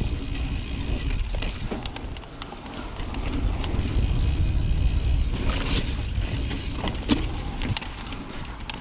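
Wind buffeting a GoPro's microphone as a 2018 Intense Carbine 29er mountain bike rolls fast down a rocky dirt trail. Tyres crunch over the ground and the bike gives scattered sharp clicks and rattles over bumps. The rumble eases briefly about two seconds in and builds again.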